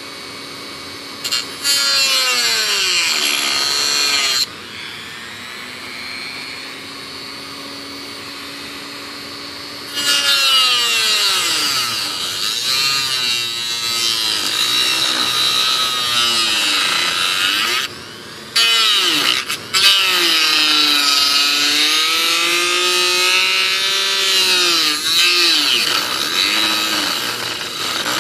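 Handheld rotary tool with a small cut-off disc cutting through thin plywood inside a model glider's fuselage. The motor's whine sags in pitch each time the disc bites. There are spells of loud grinding from about two to four seconds in, and again from about ten seconds in until near the end.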